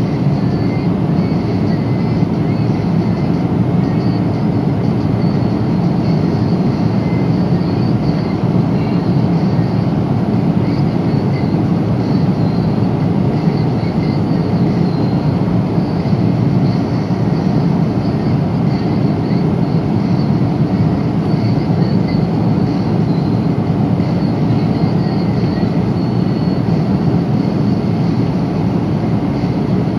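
Steady cabin noise inside a Boeing 777-300 at cruise during turbulence: a loud, even rush of airflow and engine noise, strongest in the low range, with faint high ticking.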